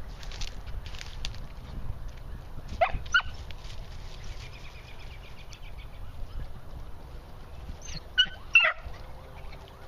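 Young beagle hounds barking while working a scent: short, high cries that fall in pitch, two about three seconds in and three more in quick succession near the end.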